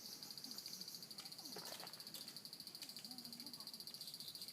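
An insect trilling: a steady, high-pitched, rapidly pulsing buzz that holds without a break.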